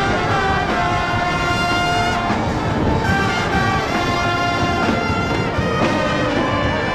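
Band music with horns playing held notes, over wind rumble on the microphone.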